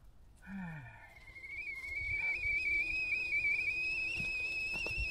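Whistling kettle coming to the boil. A high whistle starts about a second in and grows steadily louder, its pitch creeping slightly upward.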